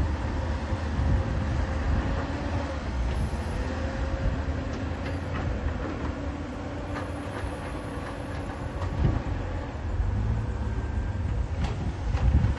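Caterpillar 320D hydraulic excavator's six-cylinder diesel running steadily as a low drone, with a few sharp metal clanks, the loudest near the end.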